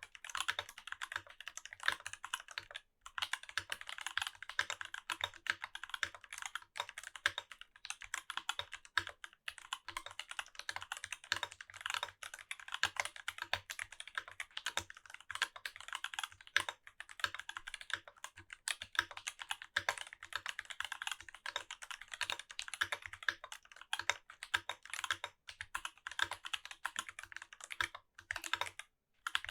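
Continuous fast typing on a mechanical keyboard with lubed and filmed Durock T1 tactile switches in a brass plate, keycaps clacking and bottoming out, with brief pauses about three seconds in and near the end.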